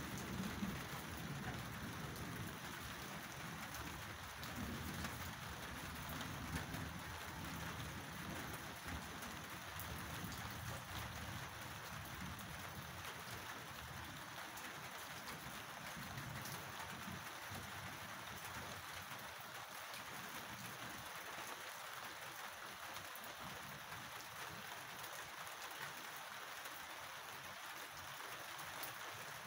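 Steady heavy rain pattering on surfaces, with low thunder rumbling in the first several seconds and dying away.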